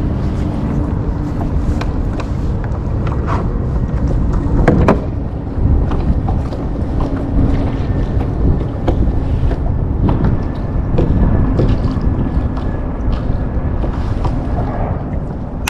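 Steady low rumble of wind on the microphone and choppy water around a plastic sit-on-top kayak, with scattered light clicks from handling a spinning rod and reel and one sharp knock about five seconds in.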